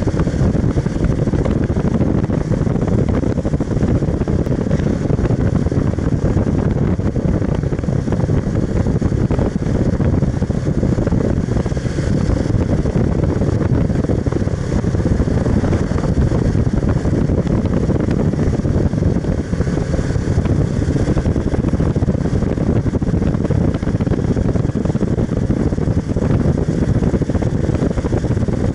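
Motorcycle riding at steady road speed, heard from the bike itself: a steady low rush of wind on the microphone with the engine running underneath.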